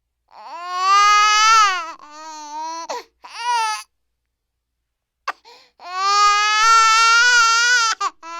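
A woman crying in long, high wailing sobs: a few wails in the first four seconds, a pause of about two seconds, then one long wail near the end.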